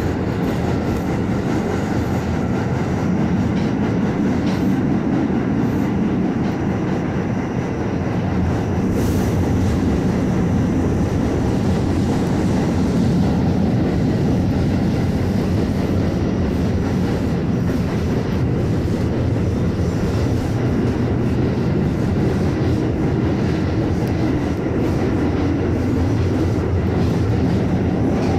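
Staten Island Railway R44 subway car heard from inside, running steadily along the track: a continuous low rumble of wheels and running gear with a few light clicks.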